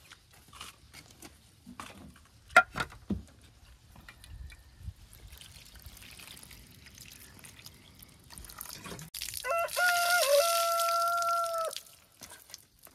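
Water poured from a plastic jug splashing over a bunch of dill in an aluminium tray, faint at first and loud and splashy near the end. About two and a half seconds in come a few sharp knocks, and during the loud splashing a rooster crows once.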